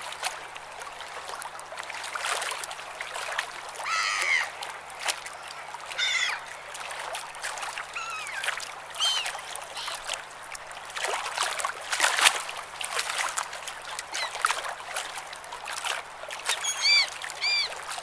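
Waves splashing and washing, with many short sharp splashes. Seagulls call now and then over it: single arched calls about 4, 6 and 8 seconds in, and a quick run of three or four calls near the end.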